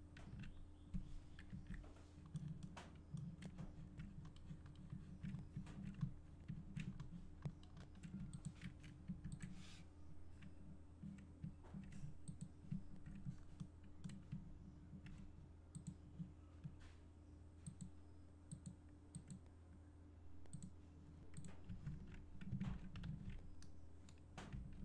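Faint, irregular clicking of a computer mouse and keyboard over a steady low electrical hum.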